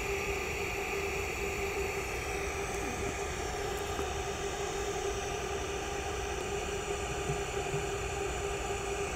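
TIG welding arc fusing thin 14 gauge stainless steel at 34 amps without filler: a steady hiss with a faint steady tone under it.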